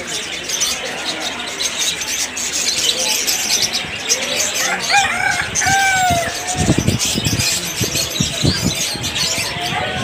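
A rooster crows once, about five seconds in, over the constant high chirping of many caged small birds. A run of low thumps follows in the second half.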